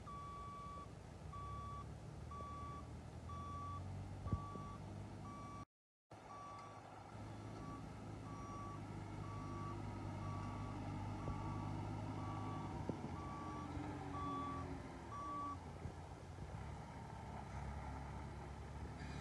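A vehicle's reversing alarm beeping steadily, about three beeps every two seconds, over its engine running. The beeping stops near the end, while the engine runs on.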